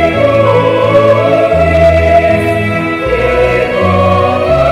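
Church choir singing a hymn together, with accompaniment holding low bass notes that change about every second.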